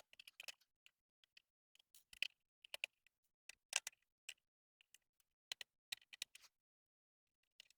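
Faint, irregular small clicks and ticks of a screwdriver working the screws out of a laptop's bottom panel, some in quick little clusters.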